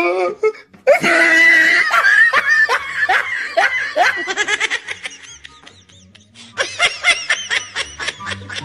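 A voice cries out, then breaks into laughter: short "ha" bursts falling in pitch, about three a second. After a brief lull there is a faster run of laughter near the end.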